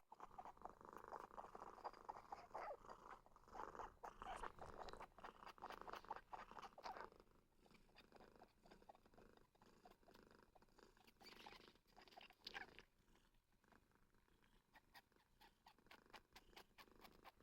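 Domestic cat purring faintly, strongest over the first seven seconds, then dropping away with another short stretch about eleven seconds in.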